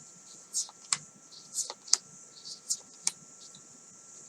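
Oracle cards being handled and turned over one by one: soft slides followed by crisp card snaps, about one a second.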